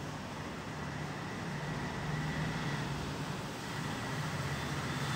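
Rotating sparkler firework burning and spinning on its wire frame, giving a steady hiss that grows louder from about two seconds in as the spark shower builds.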